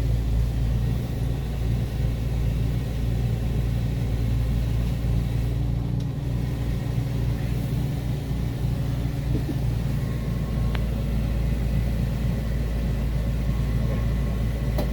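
1976 GMC motorhome's Oldsmobile 455 V8 idling steadily, a low rumble, with a single short click about eleven seconds in.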